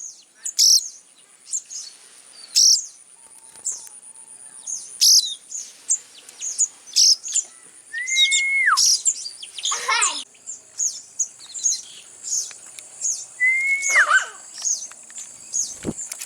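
A young sogon bird chirping repeatedly, in short high calls about once a second, as a hand-fed chick does when begging. Twice a whistled note holds steady, then drops in pitch.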